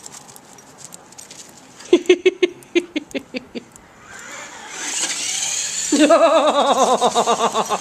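Electric remote-control toy car whirring as it is driven. A quick run of short pitched chirps comes about two seconds in, then a rising whir from about four seconds, and a loud wavering pitched whine from about six seconds.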